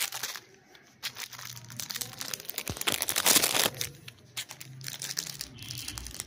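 Keyboard packaging being handled and unwrapped: irregular crinkling and rustling, loudest in a dense burst about three seconds in.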